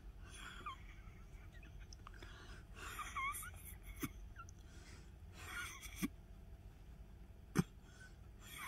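Quiet handling sounds of a resin stick working on a plastic mixing cup and a silicone mold: faint squeaks, then a few soft taps, the loudest near the end.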